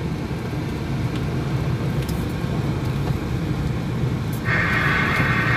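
Steady low rumble of a car's engine and tyres heard from inside the cabin while driving in traffic. About four and a half seconds in, a steady higher-pitched sound joins and it gets louder.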